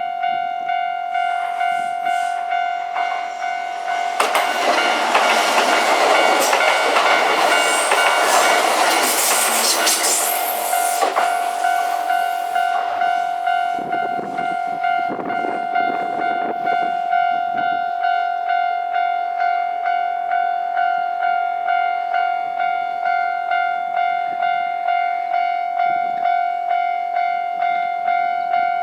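Japanese level-crossing warning bell ringing in an evenly repeating electronic ding. A Kintetsu train runs over the crossing about four seconds in: a loud rush of wheel and running noise that lasts about seven seconds, then fades while the bell keeps ringing.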